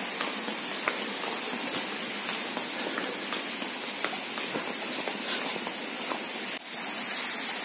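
A steady hiss of water spraying from a hose used to clean the pool, getting louder and brighter about six and a half seconds in, with light footsteps on stone steps a little more than once a second.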